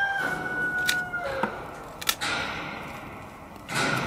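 Shears snipping through a quail's neck: a few sharp clicks of the blades, roughly half a second apart.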